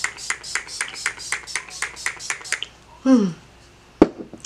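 Pump-action setting spray bottle misted rapidly onto the face, about four short hissing sprays a second, stopping about two and a half seconds in. Then a short falling voice sound and one sharp knock near the end.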